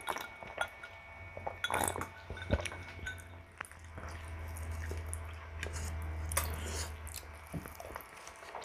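Close-up eating sounds: a sip of juice through a straw, then scattered wet mouth clicks and smacks as rice and saucy pork ribs are eaten by hand, over a low hum that grows stronger in the middle.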